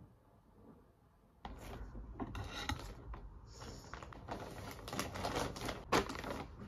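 Plastic courier mailer bag and the clear polybag inside it being handled and opened by hand, the plastic film crinkling and rustling with many sharp crackles, starting about a second and a half in. The loudest crackle comes near the end.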